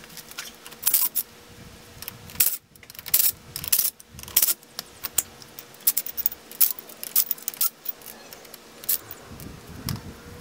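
Irregular metallic clinks and clicks of hand tools and loose hardware being handled while the wheel spacers on a G-wagen's hub are swapped.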